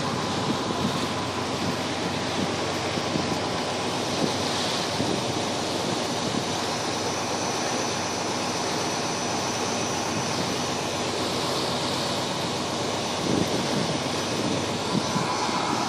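Dive boat under way: a steady rush of wind and water, with the boat's engine running.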